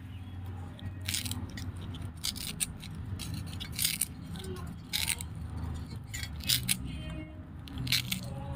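Coarse jute twine scratching and rasping in short, irregular strokes as it is pulled and unwound from a sutli bomb firecracker, over a low steady hum.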